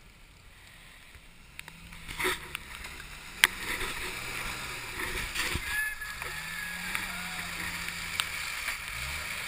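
Off-road Jeep engine revving in uneven surges as it churns through mud and water, growing louder as it closes in. There is splashing and several sharp knocks, the loudest about three and a half seconds in.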